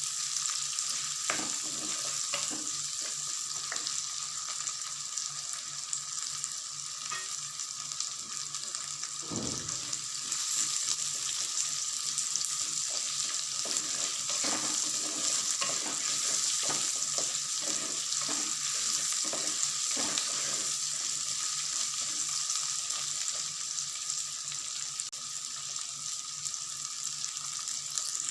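Shallots, garlic and whole spices frying in sesame oil with a steady sizzle, stirred with a utensil that scrapes and knocks against the pan many times.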